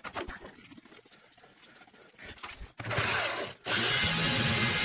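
Handling clicks and rustles, then a Rockwell reciprocating saw starts against a brick wall's mortar joint. It runs briefly about three seconds in, stops for a moment, then runs on steadily.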